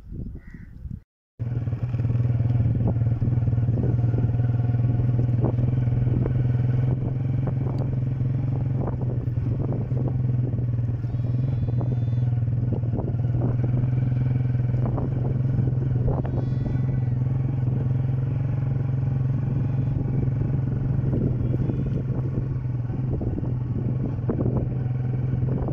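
A motorcycle engine running steadily with a low drone while riding a rough dirt track, with frequent clatter and knocks from the bumps. It starts about a second in after a brief silence.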